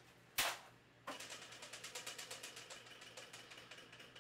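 A loud thump about half a second in, then a tabletop prize wheel spinning, its pointer ticking rapidly against the pegs, the ticks slowly spreading out as the wheel loses speed.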